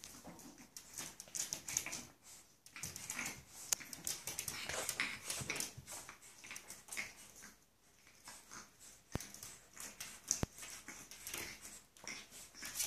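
Two-month-old pug puppy playing against a mirror: claws clicking and scrabbling on a hard floor, with small puppy vocal sounds now and then. Two sharp clicks come about a second apart past the middle.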